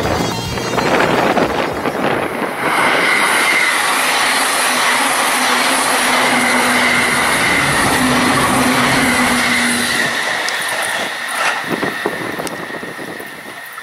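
JR East E657 series limited-express electric train passing close by at speed: loud wheel-and-rail noise with a steady high whine that fades after about ten seconds as the train goes by.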